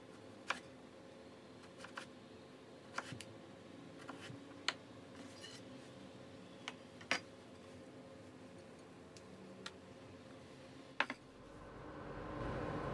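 Chef's knife cutting raw potato into strips on an end-grain wooden cutting board: a sharp knock each time the blade meets the board, irregular, about one every second or two. Near the end a steady hum with a faint whine comes in.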